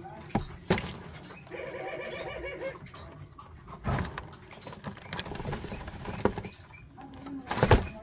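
Barbary doves in a nest box: a single rolling coo about a second and a half in, lasting just over a second. Several sharp knocks and flaps come as the adult doves shift and take off around the nest, the loudest near the end.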